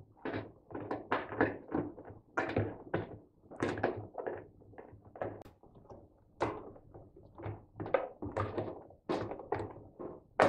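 Washing machine's rubber door seal being pressed and worked by hand onto the rim of the front panel: a run of irregular soft thunks and taps, two or three a second.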